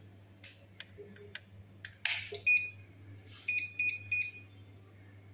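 Tefal electric fryer's control panel beeping as it is set: one short high beep, then three quick beeps at the same pitch. They follow a few light clicks and a short, loud clatter about two seconds in, over a low steady hum.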